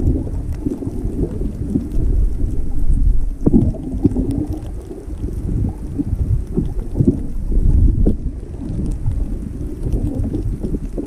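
Muffled, low rumbling wash of moving water picked up by a camera held underwater, swelling and fading irregularly, with a few short knocks and swirls from the swimmer's movement.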